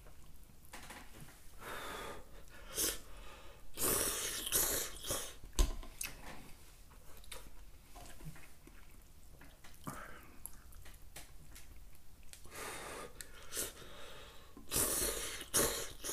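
Noodles in hot broth being slurped in several short, hissy bursts, with quieter chewing between them and a single sharp knock about five and a half seconds in.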